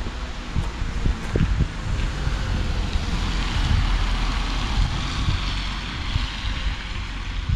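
Street ambience with wind buffeting the microphone in an uneven low rumble. A vehicle passes in the middle, its tyre hiss swelling and then fading.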